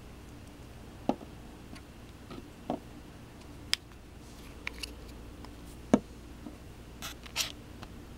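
Scattered light clicks and knocks, about six in all and the sharpest a little before the end, from handling the small plastic test-acid dropper bottle and the camera over a wooden table, over a faint steady room hum.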